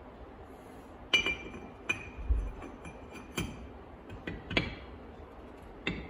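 Steel scroll gear of a three-jaw lathe chuck clinking against the steel chuck body as it is set back in. Six or seven sharp metallic clinks, each with a brief ring, and one dull knock about two seconds in.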